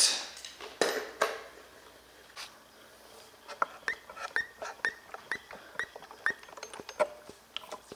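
Two knocks about a second in, then the carburetor primer bulb on a Zenoah 32cc two-stroke engine being pumped by thumb: a quick, even run of short squeaky clicks, about three a second, as fuel is primed before starting.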